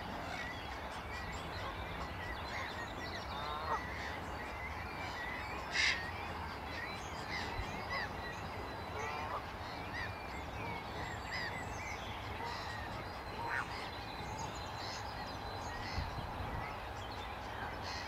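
Wetland bird chorus: many birds calling with short high chirps and whistles, a few lower, harsher calls, and one louder short call about six seconds in, over a steady low rumble.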